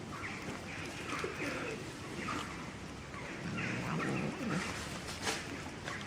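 Birds calling: many short repeated chirps, with a low cooing call in the middle.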